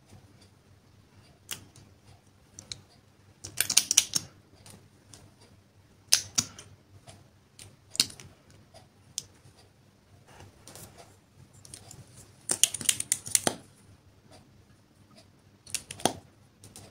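Plastic makeup packaging handled up close: lipstick caps and a small eyeshadow palette clicking open and shut, in short bursts of sharp clicks and rattles with quiet gaps between.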